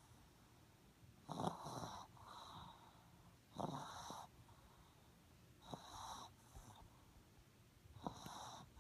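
Small black-and-tan dog snoring in its sleep: four snores about two seconds apart, each followed by a softer breath out.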